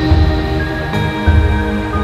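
Background music: sustained synth tones over a steady low beat.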